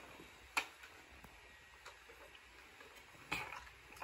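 Clicks and knocks of a child's plastic toy front loader being handled and set down: a sharp click about half a second in, a few faint ticks, then a short clatter near the end.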